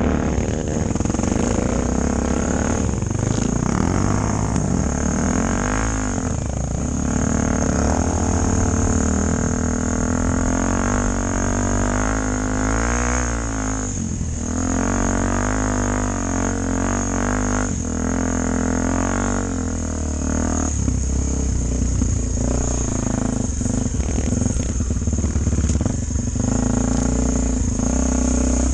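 Honda Tornado motorcycle's single-cylinder engine running under way, its pitch rising and falling with the throttle.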